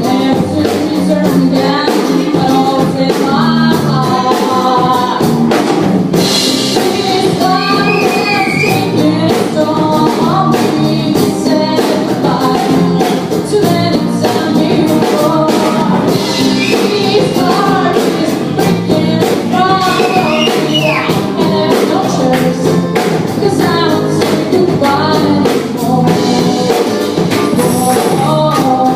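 A band playing a song with a sung melody over drum kit and tambourine, at a steady beat.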